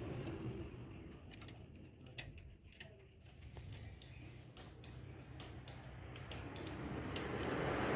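Scattered light metallic clicks and taps of tools and engine parts being handled, over a low steady hum. A broad rushing noise builds up in the last second.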